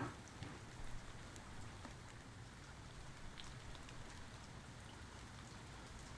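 Steady rain falling, with individual drops ticking close by, and two louder drops hitting just at the start and about a second in.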